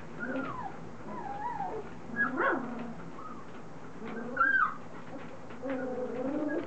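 Three-week-old standard poodle puppies whining: a string of short, wavering high calls, the loudest two about two and a half and four and a half seconds in, and a longer, lower call near the end.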